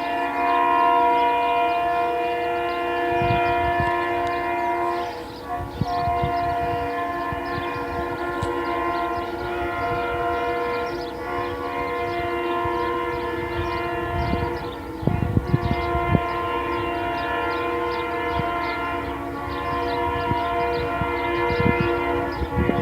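Freight locomotive's multi-chime air horn sounding in long, nearly unbroken blasts, its chord shifting a little now and then, over occasional low thumps from the passing train.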